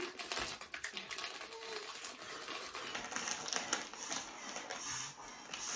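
Plastic potato chip bags crinkling as hands dig into them for chips, a quick run of small crackles.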